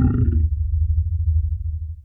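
Low rumbling tail of a roar-like logo sound effect, with a few fading tones over it for the first half second; the rumble cuts off suddenly at the end.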